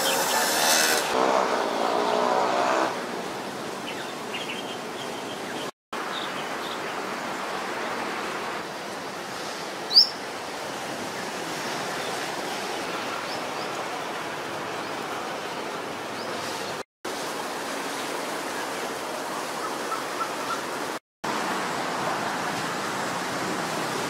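Steady outdoor ambient noise, broken by three brief silent gaps where clips are cut together. Faint voices are heard in the first few seconds, and one short rising chirp comes about ten seconds in.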